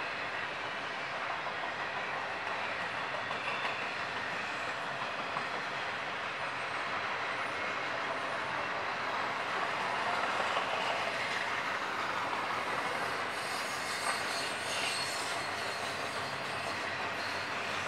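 Double-stack intermodal freight train passing: a steady noise of steel wheels running on the rails, with fine clicks and rattles from the cars in the second half.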